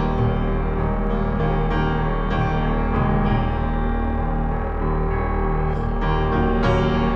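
Background music: soft piano or electric piano chords held and changing about once a second or two.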